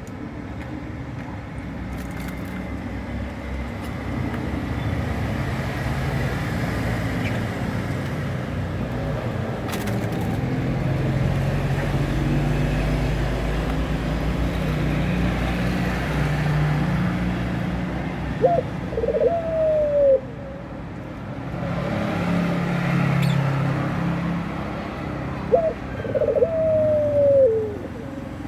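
Puter pelung dove, a long-cooing Barbary dove breed, cooing twice: each call a short note followed by a long, drawn-out note that drops at the end, the cooing of a bird in breeding mood. A steady low rumble runs underneath.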